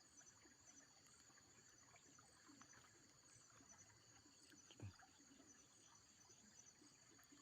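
Near silence with a faint, steady, high-pitched pulsing chirr of night insects, and one soft thump about five seconds in.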